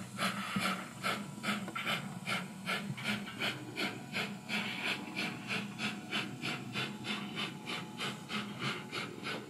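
Digital steam exhaust chuffs from an ESU LokSound V4.0 sound decoder in an Oxford Rail 00 gauge Adams Radial 4-4-2T tank engine model, played through its small onboard speaker as the locomotive runs. The chuffs come evenly at about four a second over a faint hum.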